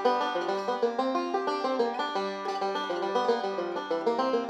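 Five-string banjo picked three-finger style: a fast, even stream of rolled notes, including a middle reverse roll.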